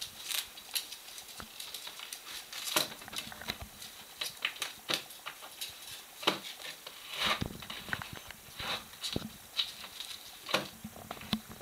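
A prairie dog tugging and gnawing at a crinkly grey plastic strip stuck in the mouth of a plastic pipe: irregular crinkling, rustling and scraping, several sharp crackles a second, with claws scratching on the parquet floor.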